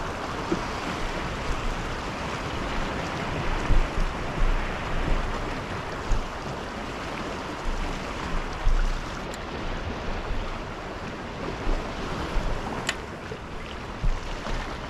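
Sea washing and surging over a rocky reef, with wind gusting on the microphone in low rumbles. A single sharp click about two seconds before the end.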